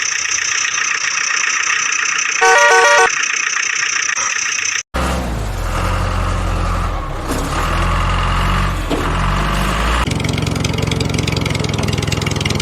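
Toy vehicle sounds in two parts. First comes a steady electronic tone with a short beeping tune about two and a half seconds in. After an abrupt cut about five seconds in, a low engine-like running sound follows and changes character about ten seconds in.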